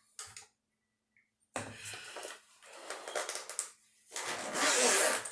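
Rummaging through a makeup bag: rustling and handling of the bag and its contents in several bursts, the loudest near the end, after about a second and a half of near silence.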